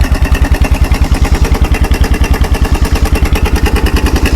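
Kawasaki 300 4x4 ATV's single-cylinder four-stroke engine idling steadily with its air filter off, an even rapid putt-putt of about nine firing pulses a second.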